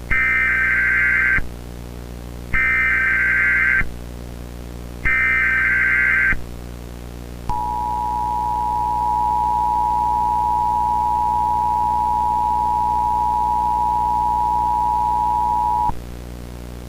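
Emergency Alert System header: three screeching bursts of SAME digital data, each about a second and a half long, then the two-tone EAS attention signal held steady for about eight seconds before cutting off. A low steady hum runs underneath.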